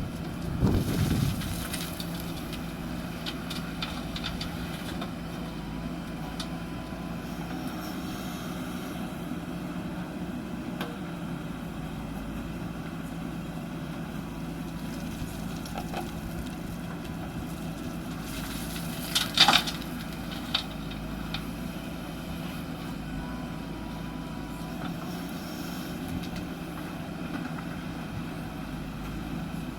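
JCB backhoe loader's diesel engine running steadily, louder for the first second or so. About nineteen seconds in comes a sudden loud noise lasting about half a second, with a smaller one just after.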